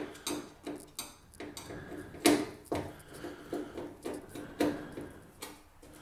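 A run of short metallic clicks and taps, about two or three a second and irregular, from the screws that hold the tumble dryer's top panel being undone.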